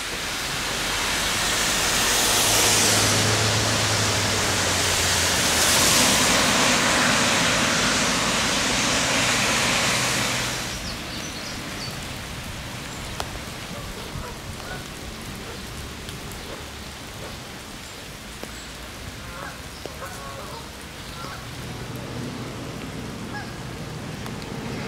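Traffic on a rain-soaked road: tyres hissing through surface water, with engine hum swelling as vehicles pass. About ten seconds in this gives way to a quieter, steady hiss of rain falling on flooded ground and puddles.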